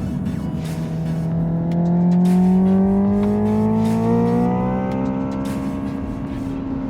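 Hyundai Ioniq 5 N's synthetic engine sound, played through the cabin speakers under hard acceleration. The droning engine-like note rises steadily in pitch for about four seconds, then levels off.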